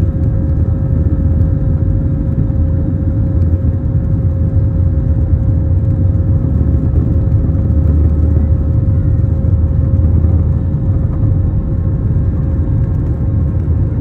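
Airbus A321-200 at takeoff thrust during the takeoff roll, heard inside the cabin: a loud, steady jet-engine rumble with a constant hum tone running through it.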